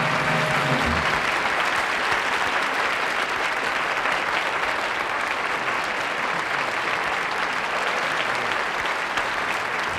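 Studio audience applauding steadily, with the last notes of band music fading out about a second in.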